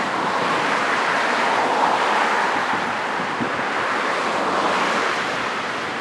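Ocean surf breaking and washing in a steady rush that swells a little and eases, with wind buffeting the microphone.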